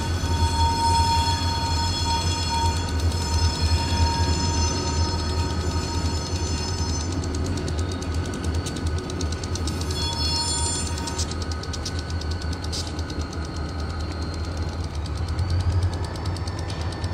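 Wheeling & Lake Erie freight train rolling by with a steady low rumble. Steel wheels squeal against the rails in a long high-pitched tone for the first seven seconds and again briefly about ten seconds in.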